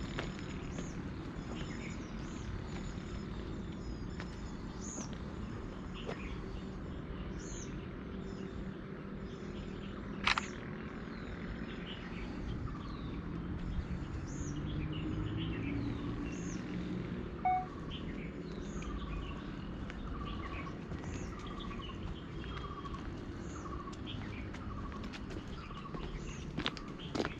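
Wild birds calling: short high chirps throughout, and through the middle a regular series of repeated call notes, about one a second. A steady low rumble lies underneath, with one sharp knock about ten seconds in.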